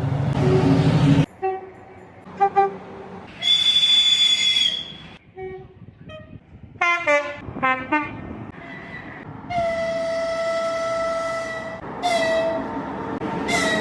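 Train horns from several recordings cut together: a long blast, a few short toots, a higher-pitched chord, a quick run of short toots about seven seconds in, then two long steady chords near the end. Each sounding stops abruptly where the next clip begins.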